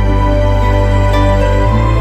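Background music: a slow, calm instrumental track with sustained bass notes and held chords, the bass shifting to a new note near the end.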